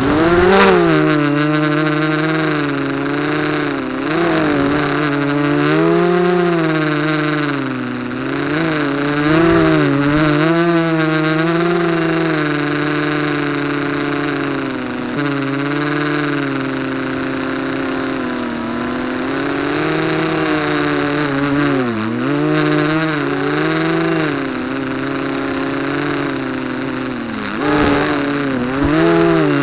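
The brushless motors and propellers of a ZMR250 racing quadcopter, heard through its onboard keychain camera's microphone, whining with a pitch that swoops up and down continually as the throttle changes. Near the end the pitch drops sharply, then climbs back.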